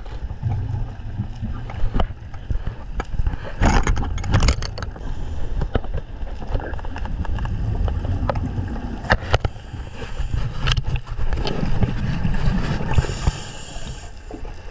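Underwater sound from a GoPro in its housing: a steady low rumble of water and movement, with scattered sharp clicks and a couple of short rushing bursts about four seconds in.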